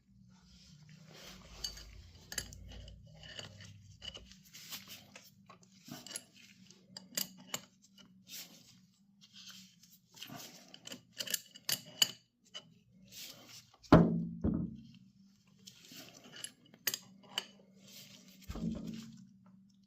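Scattered metal clicks and clinks from a chain riveting tool being worked on a motorcycle chain's master link rivet, with a heavier knock about fourteen seconds in and another near the end, over a low steady hum.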